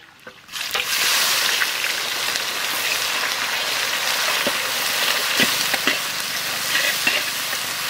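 Sliced onions sizzling in hot mustard oil with whole spices in a large metal kadai. The frying hiss starts about half a second in and then holds steady, with a few light knocks of the metal spatula as the onions are stirred.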